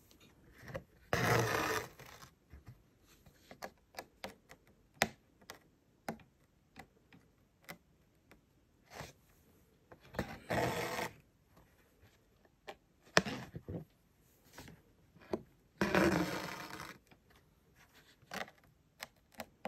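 Embroidery needle and wool thread worked through cloth in a hoop: three long pulls of the thread through the fabric, each about a second, with small clicks and taps of the needle and fingers between.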